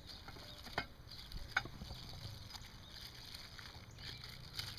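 Hands rummaging through a fabric croquet-set bag: soft rustling with a couple of light knocks about one and one-and-a-half seconds in, over a low rumble of wind on the microphone.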